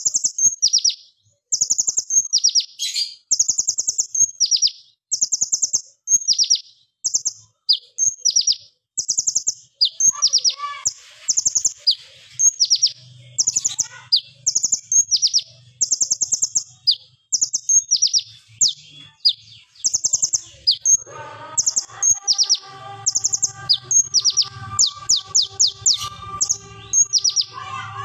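Male kolibri ninja (konin) sunbird singing in rapid-fire volleys: short, very high, sharp rattling chirps, one after another with barely a pause, the machine-gun-like 'tembakan' song. From about two-thirds of the way in, a fainter steady hum with a few held tones runs under the song.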